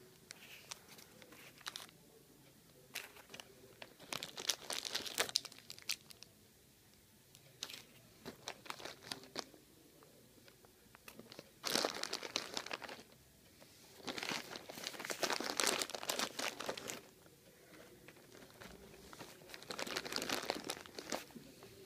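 Plastic packaging and sweet wrappers crinkling as small wrapped sweets and nuts are taken out by hand and set down. The crinkling comes in several bursts of a second or more, with quieter pauses between them.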